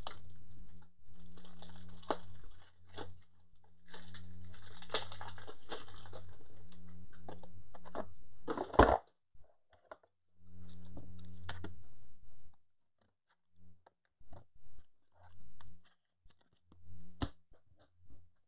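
Plastic card holders and packaging being handled, in rustling, crinkling stretches of a second or two, with one sharp click about nine seconds in.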